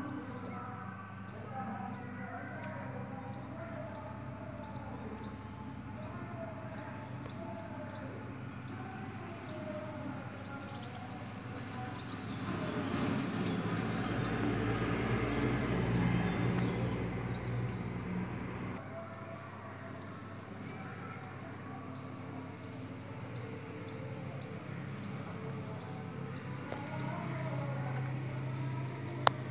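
Bird chicks begging with high-pitched chirps repeated quickly and evenly, about two or three a second. Partway through the chirps are drowned for several seconds by a louder rushing noise, with a steady low hum underneath.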